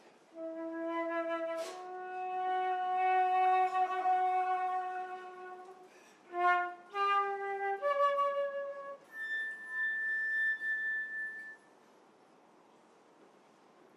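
Solo flute playing a slow, sparse line: a long low note swells and fades, a few short notes step upward, then a soft high note is held before a pause near the end.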